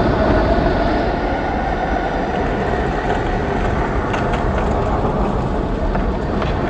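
Loud, steady rumbling roar of a show's tornado wind effects played through a theatre sound system.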